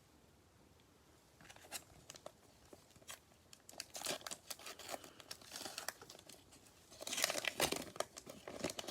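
Cellophane wrapper of a trading card cello pack being torn open and crinkled, faint at first, then louder crackling about four seconds in and again near the end.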